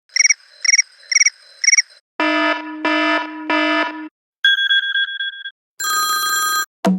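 Stock iPhone ringtones previewed one after another, each cut off after a second or so. First come four quick cricket-like chirps, then three longer electronic rings, then a short two-note beep and other brief tones.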